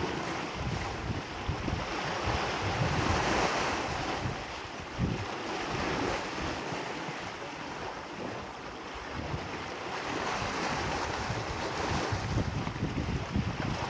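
Ocean waves surging, with wind buffeting the microphone. The surf swells louder a few seconds in.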